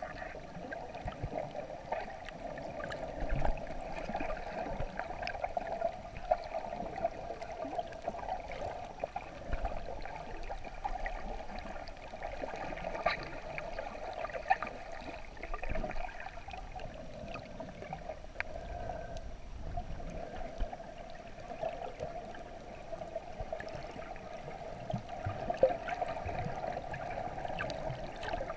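Underwater ambience picked up by a submerged camera in the sea: a steady watery wash with many scattered faint clicks and crackles.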